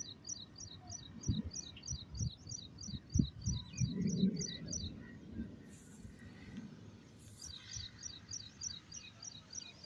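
A small bird chirping in a quick, even series, about three high calls a second, breaking off about five seconds in and starting again a couple of seconds later, over low bumps and rumbles on the microphone.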